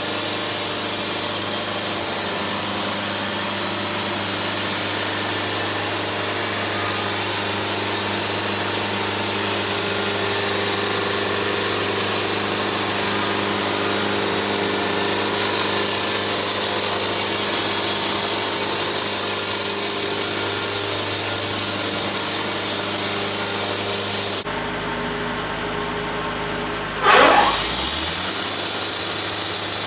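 Engine-driven sawmill running steadily as it saws through an oak log. Near the end the sound drops sharply for a couple of seconds, then comes back with a quick rising whine.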